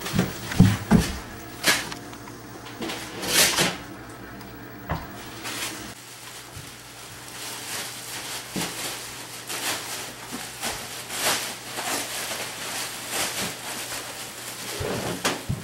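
Black plastic trash bags rustling and crinkling as they are handled and pulled over a person, with scattered knocks and bumps. There is a louder crackle about three and a half seconds in, and the crinkling is thickest in the second half.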